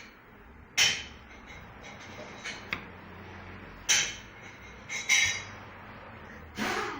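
Metal parts of a car starter motor knocking and clinking together as its end cover is fitted during reassembly: several separate sharp metallic clicks with a brief ring, and a longer rubbing, scraping sound near the end.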